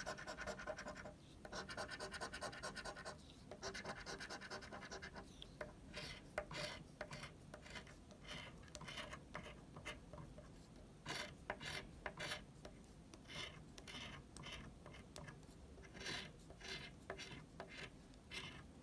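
Scratching the coating off a scratch-off lottery ticket. There are runs of quick, steady rubbing strokes for the first few seconds, then shorter separate strokes with brief pauses.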